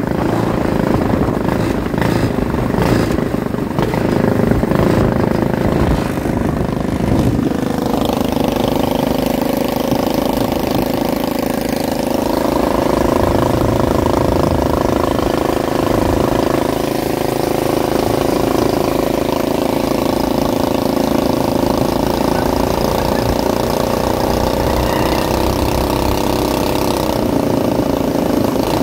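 Go-kart's small engine running as the kart cruises. The note is unsettled for the first several seconds, then holds steady. The patched-up clutch is no longer making noise.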